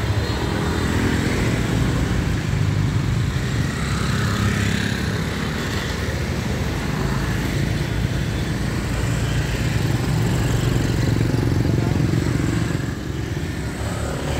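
City street traffic, with motor scooters riding past close by, their small engines rising and fading over a steady low traffic rumble.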